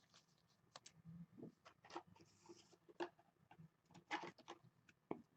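Faint handling of trading cards and plastic sleeves: scattered soft clicks and taps, with a short swish about two seconds in.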